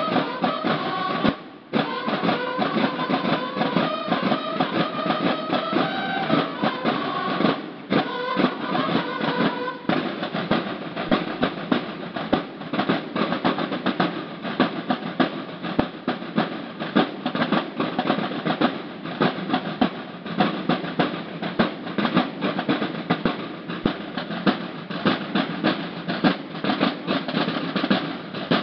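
A banda de guerra of bugles and snare drums playing a military march together, with a short break about a second and a half in. About ten seconds in the bugles stop, and the snare drums carry on alone with a steady, rapid marching cadence.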